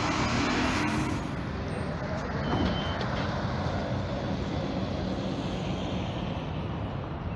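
Street traffic: steady road noise of passing vehicles, with a short high-pitched beep about two and a half seconds in.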